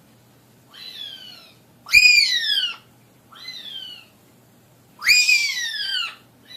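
Parrot giving four whistled calls in a row, each sweeping up sharply and then gliding down, alternating softer and louder.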